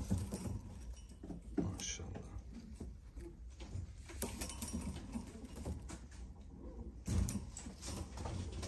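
Fancy pigeons in a wire cage: faint cooing and movement on the cage floor, with a few sharp knocks, the clearest about two seconds in and about seven seconds in.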